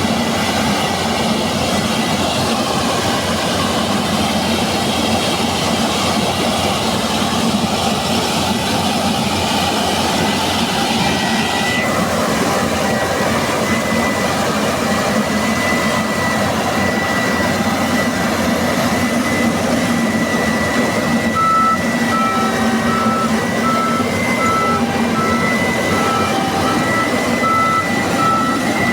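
Combine harvester running steadily under load, its engine and threshing machinery giving a constant drone with a high whine. About two-thirds of the way in a single-pitched electronic beep starts, repeating about twice a second.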